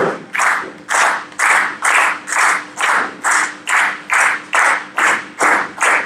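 Crowd clapping in unison in a steady rhythm, a little over two claps a second.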